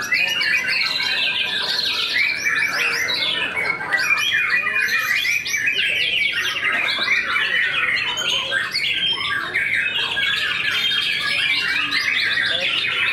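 White-rumped shama (murai batu) singing an unbroken, fast stream of varied notes and rapid trills.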